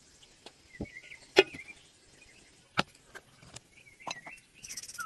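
Sparse, sharp light taps and clicks, about six of them, the loudest about a second and a half in, over faint chirping.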